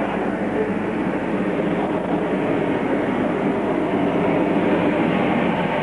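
Loud, steady jet noise from a Harrier GR7's Rolls-Royce Pegasus vectored-thrust turbofan as the jump jet flies slowly overhead.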